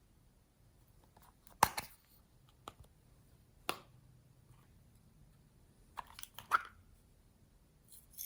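Glossy slime being pressed and worked by hand, giving short sharp clicks and pops: a loud one about one and a half seconds in, single ones a second and two seconds later, a quick cluster around six seconds and another near the end.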